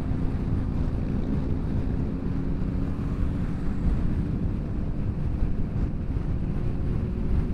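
Wind rushing over the microphone of a motorcycle at road speed, with the bike's engine running steadily underneath.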